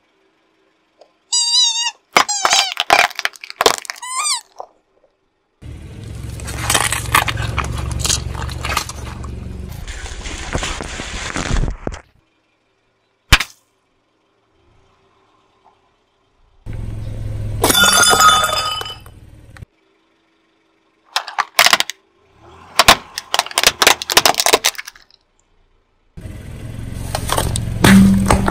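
Car tyre slowly rolling over and crushing a series of objects, heard as separate bursts with silent cuts between them. Rubber squeeze toys give a short warbling squeal, then plastic cracks and snaps. Longer stretches carry a low rumble of the tyre with crackling and crunching, and near the end aluminium beer cans are crushed.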